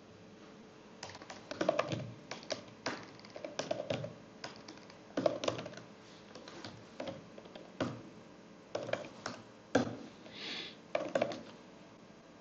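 Typing on a computer keyboard: irregular key clicks in quick clusters, starting about a second in, as a shell command is typed.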